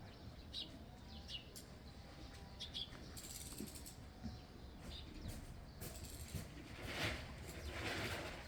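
A few short, high bird chirps in the first three seconds over a faint low background rumble, then several louder noisy swishes toward the end.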